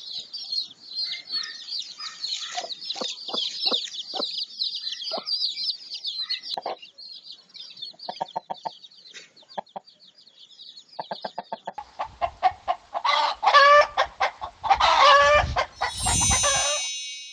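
A brood of chicks peeping rapidly and continuously while a hen clucks softly. Later come two louder, drawn-out calls from an adult chicken, and a brief bright chime sounds near the end.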